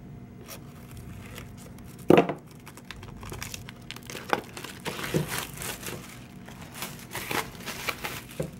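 Plastic shrink-wrap on a DVD box set being slit with a small pointed tool and pulled off, crinkling and tearing, with one short thump about two seconds in.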